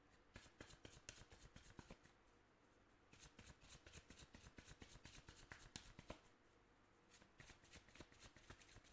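Tarot deck being shuffled in the hands: a fast, faint patter of cards slapping together, with a short lull about two seconds in and another shortly before the end.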